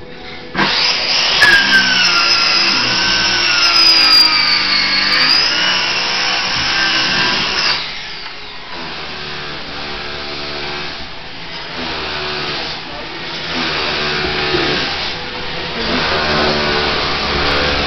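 A power tool's motor whining loudly for about seven seconds, its pitch sagging and recovering as it bites into the floor, then dropping to a quieter, lower running sound.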